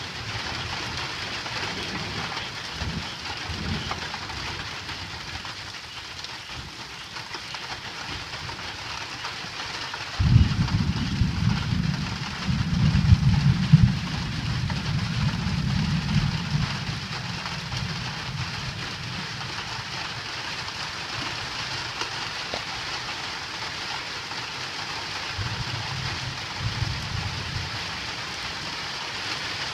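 Rain falling steadily on a tin roof. About ten seconds in, a roll of thunder comes in suddenly and rumbles for several seconds. A fainter rumble follows near the end.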